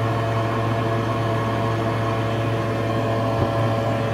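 Ventilation fan of a fume enclosure running with a steady hum, a low drone with several steady higher tones over it. A faint knock about three and a half seconds in.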